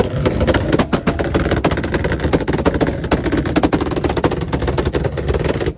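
Toyota Supra Mk4's turbocharged 2JZ straight-six running on an anti-lag tune, its exhaust firing a rapid, machine-gun-like string of bangs and pops over the running engine, then cutting off suddenly near the end.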